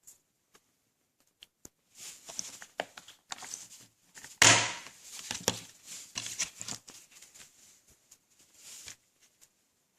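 DVD packaging being handled and unwrapped: irregular rustling, crinkling and small clicks, with one loud short rustle or rip about halfway through.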